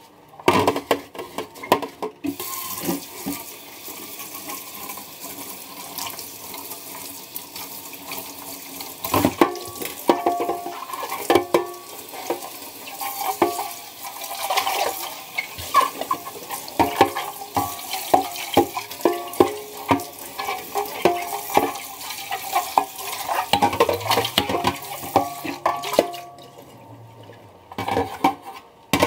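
Water splashing in a stainless steel sink as an Instant air fryer basket is scrubbed with a soapy sponge and rinsed by hand, with frequent clatters and knocks of the basket against the sink.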